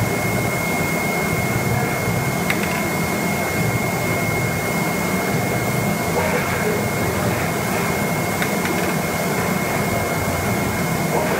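Flatbed digital sample-cutting plotter at work, its tool head travelling and cutting a printed carton sheet: a steady, even rush of machine noise with a thin, steady high whine and a couple of faint clicks.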